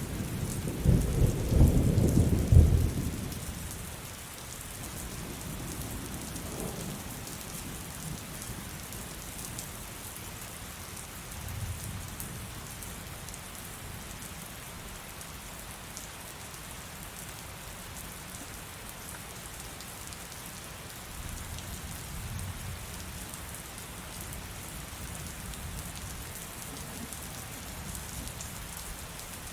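Heavy rain falling steadily, with a loud low roll of thunder in the first few seconds and fainter rumbles of thunder later.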